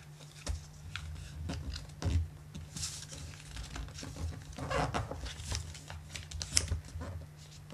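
A sheet of paper being folded and creased by hand: rustling and crinkling, with scattered short crackles as the folds are pressed down.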